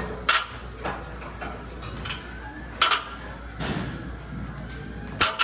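Loaded barbell set down on the floor between deadlift reps: three metallic clanks of the plates and bar, about two and a half seconds apart.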